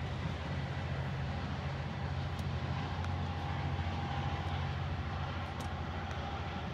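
Diesel locomotive running with a steady low engine drone and a faint steady higher hum above it.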